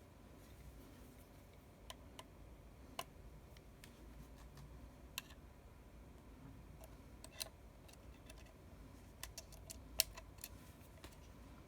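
Small hand tools and tiny phone parts clicking and tapping against an iPhone 6s under disassembly: a dozen or so sharp, irregular ticks over a faint steady background, bunching together and loudest about ten seconds in.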